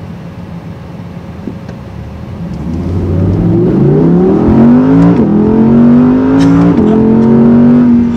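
Audi R8's naturally aspirated V10 heard from inside the cabin, held at low revs for a couple of seconds, then pulling hard at full throttle in a 0–60 mph run. The revs climb steadily, broken twice by quick upshifts that drop the pitch, about halfway through and again a second and a half later.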